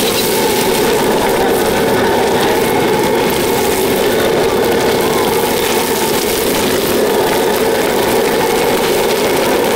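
A loud, steady, unbroken roar from the cooking equipment of a fried-rice stall.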